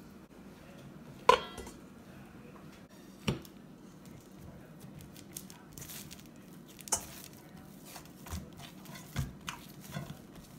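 Risen naan dough being pressed and folded by hand in a stainless steel bowl, with a few sharp knocks and clinks of the metal bowl. The loudest knock comes about a second in with a short ring, others follow around three and seven seconds in, and lighter taps near the end.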